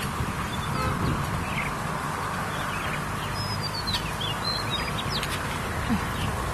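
Birds chirping now and then, short high calls, over a steady outdoor background hiss.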